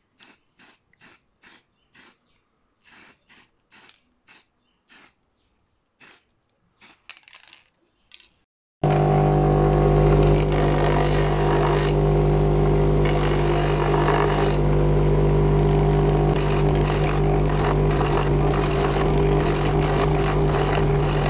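Faint short scratchy strokes, about two a second, as textured paint is dabbed onto the carved wood. About nine seconds in, a bench motor spinning a sanding disc cuts in loud and runs steadily with a constant hum and a rushing grind as the painted wooden piece is pressed against it, sanding the surface paint off to leave the inlay.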